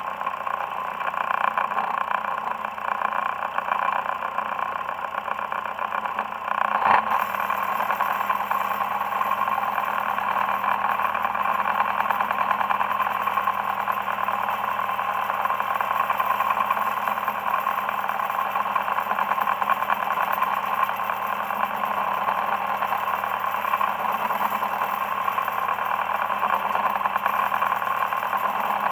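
Boat engine running steadily under way, with water rushing in the wake. A single sharp knock comes about seven seconds in.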